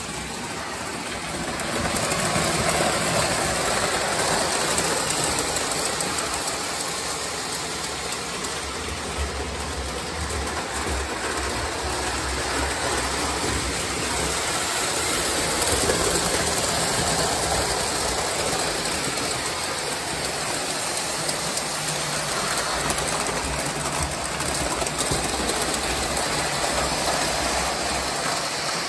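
O scale Lionel model trains running on three-rail tinplate track: a steady whirring rattle of motors and wheels on the metal rails, with a low hum underneath.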